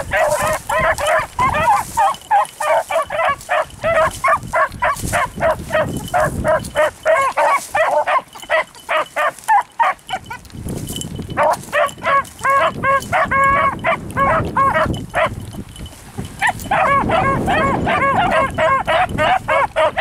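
A pack of beagles baying on a rabbit's track, many overlapping barks in quick succession. The cry breaks off twice, in a lull a little before halfway and a shorter one about three quarters through, then picks up again.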